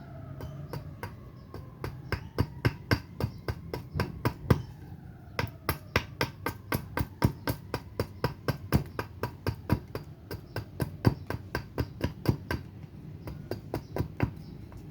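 Axe chopping a surian-wood spoon blank: quick repeated strikes of the blade into the wood, about three a second, with a short pause near the end before lighter strikes.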